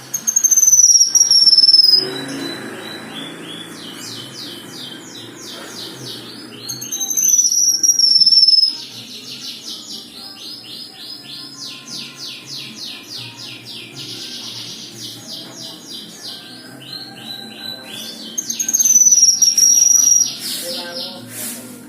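A kinoi (cucak kinoi) songbird singing. It gives three loud, high, slightly falling whistles of about two seconds each, near the start, in the middle and near the end. Between them run long, rapid trills of evenly repeated notes.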